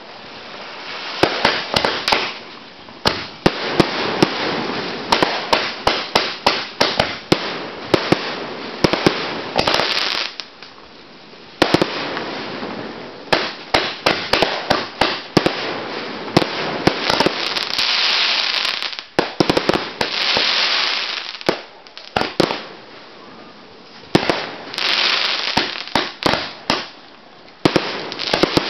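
Fireworks display: rapid volleys of launches and bangs, several a second, with stretches of crackling hiss from the bursts and two short lulls.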